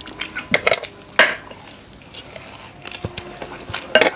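Utensils and dishes clinking and scraping: a few short sharp clinks in the first second and a half, a quieter stretch, then another clink near the end.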